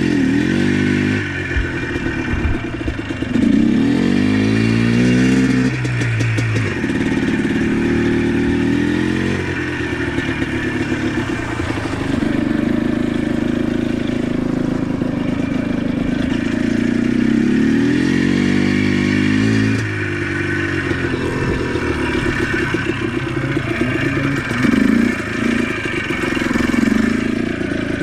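ATV engine running under way, its pitch rising and falling over and over as the throttle is opened and eased, with rattling and clattering from the machine over rough ground.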